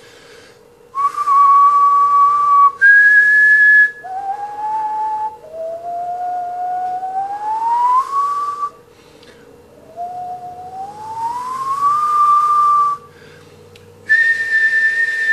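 A person whistling pure notes with short pauses between them: two held notes, the second higher, then a lower note, then two slow upward slides, and a high held note near the end.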